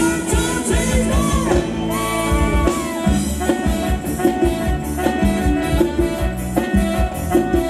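Live Thai band playing ramwong dance music, with a bending sung or played melody in the first three seconds and a steady, even drum beat throughout.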